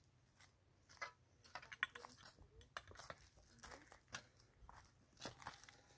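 Faint, scattered crunching and crackling, short irregular clicks like something being handled or stepped on.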